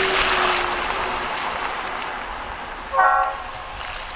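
The air horn of a freight locomotive, an EMD SD40-2, gives one short toot about three seconds in. Under it a rushing noise fades away.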